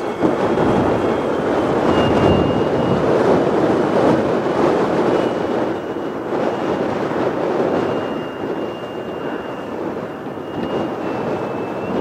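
Wind buffeting the microphone, loud and gusty. Above it, the thin high whine of the radio-controlled Piper Cub's motor and propeller drifts slightly up and down in pitch as the model flies overhead.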